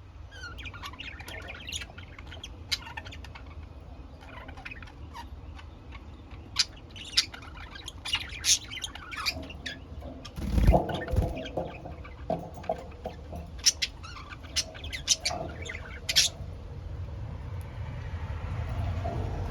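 Pet budgerigars chirping and chattering in many short, sharp calls, with a brief louder flurry about eleven seconds in.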